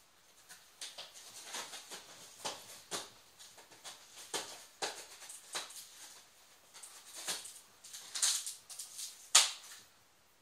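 Cardboard TV box being opened by hand: irregular scraping, rustling and crackling of the box flaps and packaging, with one sharper, louder scrape near the end.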